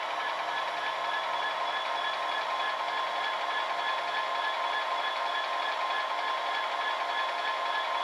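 Simulated Class 67 diesel engine sound from a DCC sound decoder in a Hornby OO-gauge model, played through two small bass speakers fitted in the fuel tanks. A steady engine sound with a high whine on top, as the model draws to a stop with its coach.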